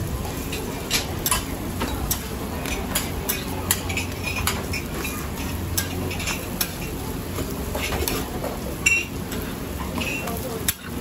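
Metal spatula clinking and scraping on a flat-top griddle as roti canai are flipped: a string of irregular sharp clinks over a steady frying sizzle.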